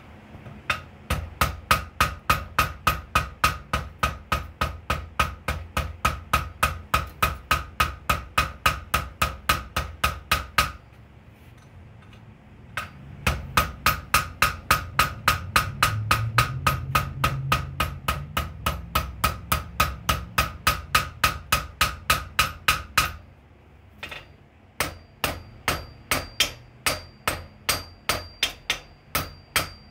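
Blacksmith's hand hammer striking red-hot steel held in tongs on an anvil, in quick, even blows of about four a second with a ringing tone. The hammering comes in three runs, stopping for about two seconds near the middle and briefly again later.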